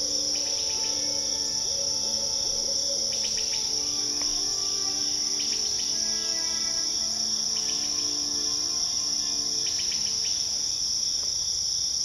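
A steady high-pitched insect chorus, with a short chirping trill about every two seconds, over soft background music of held notes.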